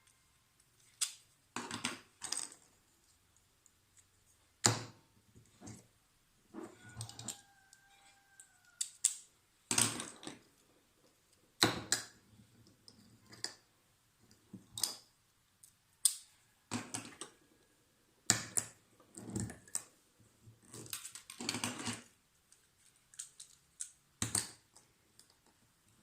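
An EAS magnetic security-tag detacher and its tags being handled, making irregular clicks, taps and short rustles every second or two, with a faint brief squeak about seven seconds in.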